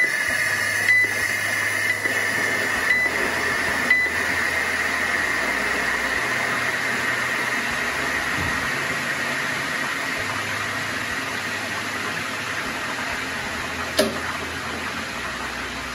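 Broaster 1800 pressure fryer venting its pressure through the release valve: a steady hiss with a thin whistle in it, slowly fading as the pressure drops. A short beep repeats about once a second for the first few seconds, and a sharp knock sounds near the end.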